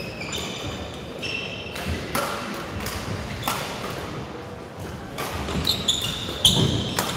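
Court shoes squeaking on the badminton court floor as players move and set their feet, with scattered sharp taps and thuds. The squeaks cluster about a second in and again near the end.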